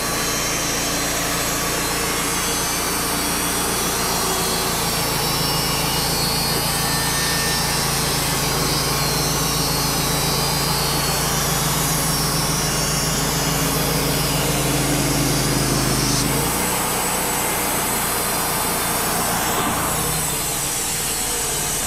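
Wood-Mizer LT35 HD portable band sawmill running, its band blade cutting a board off a black cherry cant. The steady drone of engine and blade changes about sixteen seconds in, when its low hum drops away.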